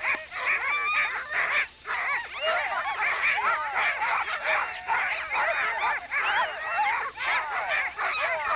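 Many sled dogs yelping and barking at once, a dense chorus of overlapping excited yips.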